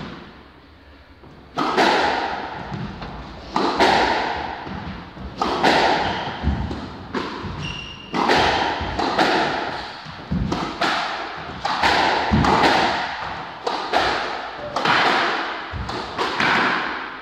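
Squash rally: after a short lull, the ball is struck by rackets and smacks against the court walls again and again, about once a second. Each hit echoes in the enclosed court.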